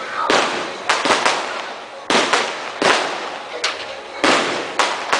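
Class 2 consumer fireworks going off in quick, uneven succession: about ten sharp bangs, several of them close together, each trailing off in a fading hiss.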